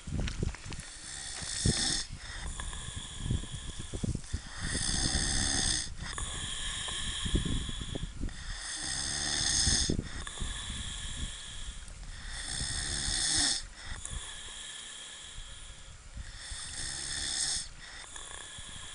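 Snoring from a sleeping man and dog: five long snores about four seconds apart, each with a high, whistling wheeze on top.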